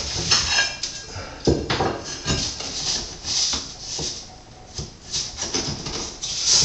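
Irregular scraping strokes and light knocks from hand tile work: a trowel working thin-set mortar and marble tile being rubbed and pressed into place.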